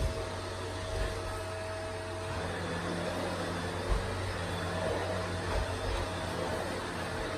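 A steady machine hum with hiss, like a running appliance or fan, and a brief thump about four seconds in.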